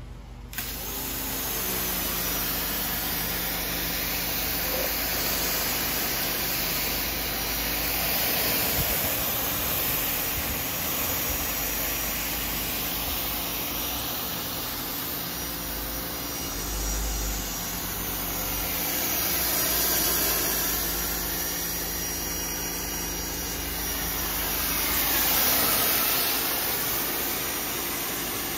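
Ryobi 1900 PSI electric pressure washer rinsing foam off a car: a steady hiss of the spray on the paint over the hum of the pump. It swells louder a few times as the jet sweeps across the body.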